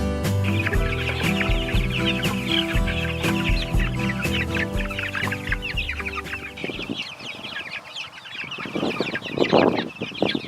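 A flock of broiler chicks peeping constantly in rapid, high chirps. Guitar background music plays under them and stops about two-thirds of the way through, leaving the chicks alone, with a louder, lower call near the end.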